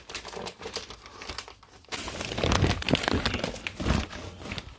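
Packaging crinkling and rustling as a part is unwrapped by hand, louder and busier in the second half.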